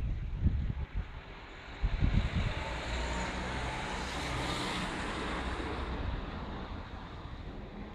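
A vehicle passing in the street, its noise swelling to a peak midway and then fading. Wind buffets the microphone in the first couple of seconds.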